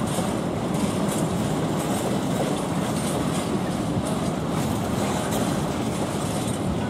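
Freight train of empty flat wagons rolling past at low speed: a steady rumble from the wagons, with light clicks from the wheels on the track.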